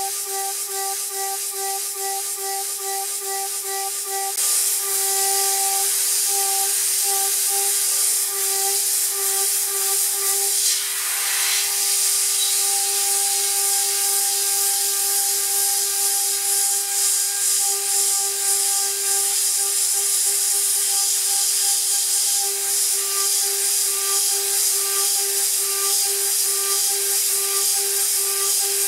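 High-speed CNC router spindle at 24,000 rpm milling 6060 aluminium with a 6 mm three-flute end mill: a steady whine with a hissing spray of chips and mist coolant. It turns louder and steadier about four seconds in.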